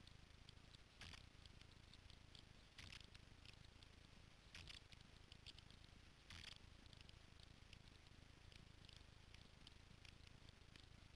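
Near silence with no engine running: faint crackling and four brief soft rustles, spaced about two seconds apart in the first half.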